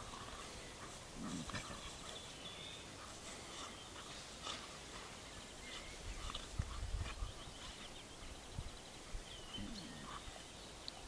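Puppies play-fighting, with a few short low growls and grunts among faint scuffling.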